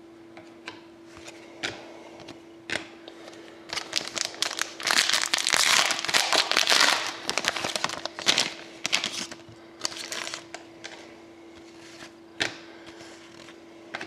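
Plastic wrapper of a trading-card pack crinkling as the pack is opened and handled, loudest for a few seconds in the middle, with scattered light clicks and taps of cards being handled before and after.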